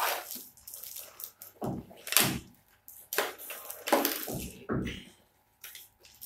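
Cardboard box and plastic-wrapped aquarium filter parts being handled and pulled out: irregular rustling and scraping with a few short knocks.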